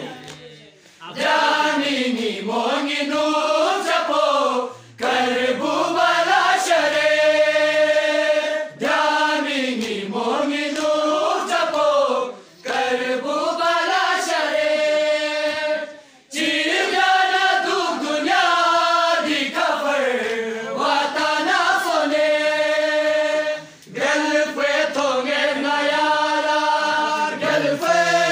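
A group of young men chanting an Urdu noha, a Shia lament, in unison and unaccompanied. It comes in long sung lines with held notes, with a short breath between lines every few seconds.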